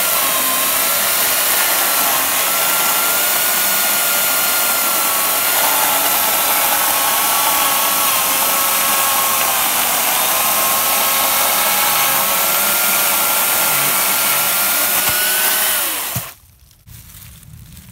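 Makita UC4041A corded electric chainsaw cutting through a thick log, its motor whine steady with slight sags as the chain bites into the wood. Near the end the cut finishes and the motor quickly winds down and stops.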